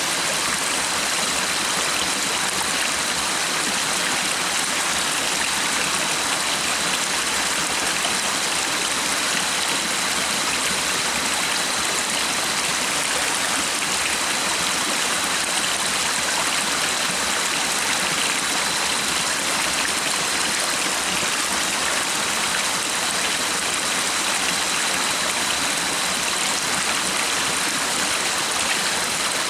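A stream of running water, rushing steadily and evenly, with a faint, steady high-pitched tone underneath.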